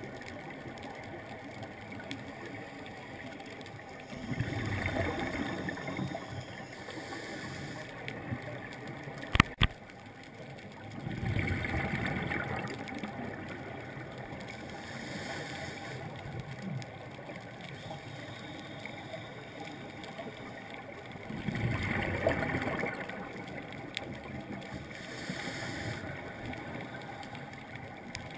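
Scuba regulator breathing heard underwater: three long bubbling exhalations roughly nine seconds apart, each followed by a fainter hiss of inhalation, and a single sharp click about nine seconds in.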